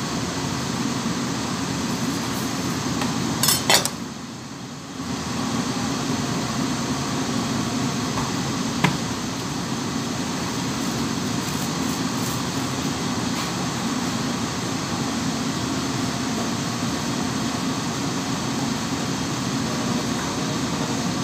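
Steady mechanical hum of a commercial kitchen, with a cluster of sharp knocks about three and a half seconds in, a brief drop in the hum just after, and one more sharp knock near nine seconds.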